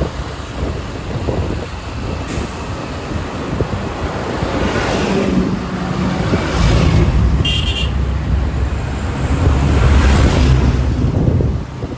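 Motorcycle riding along a highway: engine and road rumble with rushing wind, heavier for a stretch past the middle. There is a short high beep about seven and a half seconds in.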